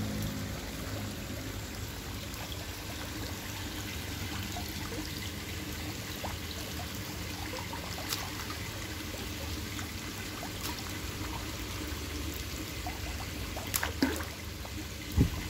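Water pouring and trickling steadily into a concrete koi spawning tank. A few short knocks come near the end.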